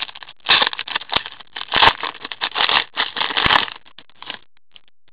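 Foil wrapper of an Upper Deck Series 1 hockey card pack being torn open and crinkled by gloved hands: a run of crackling rustles with a few sharp snaps, stopping about four seconds in.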